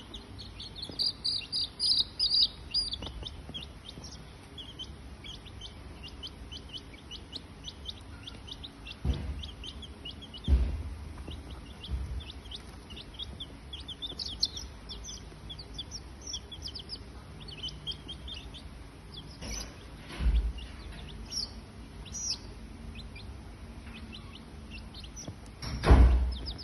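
Birds chirping, a steady run of many short high chirps, busiest about one to two seconds in. Several dull thumps break in, the loudest near the end.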